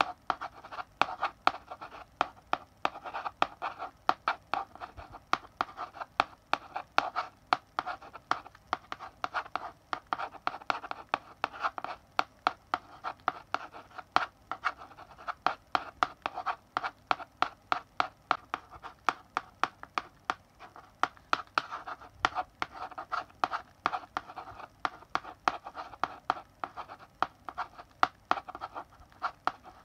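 Chalk writing on a blackboard: scratchy strokes broken by frequent sharp taps of the chalk striking the board, several a second, continuing steadily throughout.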